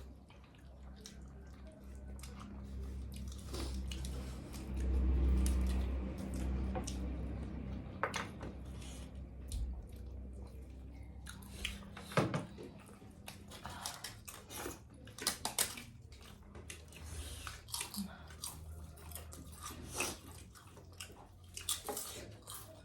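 Mouth sounds of eating close to the microphone, with many short clicks and snaps from plates and cutlery through the second half, and a low rumble about four to seven seconds in.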